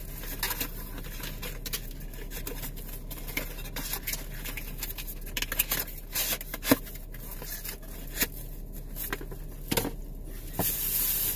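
Plastic and cardboard packaging being handled: rustling and scraping with scattered sharp clicks, and a louder rustle near the end.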